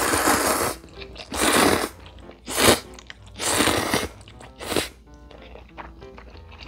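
A person slurping instant ramen noodles from chopsticks in five loud slurps, the first and fourth the longest, then chewing the mouthful quietly over the last couple of seconds.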